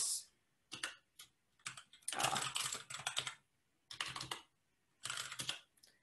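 Typing on a computer keyboard: several quick bursts of keystrokes separated by short pauses.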